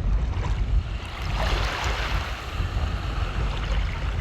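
Seawater washing and lapping, one wave swelling and fading about halfway through, over a low gusty rumble of wind on the microphone.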